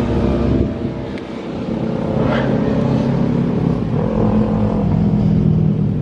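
Motor vehicle engines running nearby: a steady drone cuts off about half a second in, then another engine note comes up and shifts in pitch.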